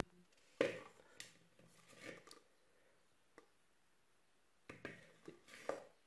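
Faint handling noises from a metal cooking pot: a few scattered soft knocks and clicks as it is held and moved, with near silence between them.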